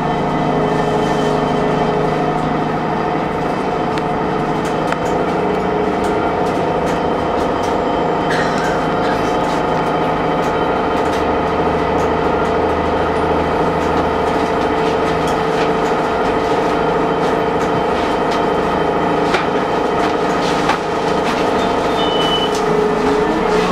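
Transit bus running steadily, with a cluster of steady whining tones over the low engine drone, plus faint scattered rattles. The whine is the unusual noise this bus makes.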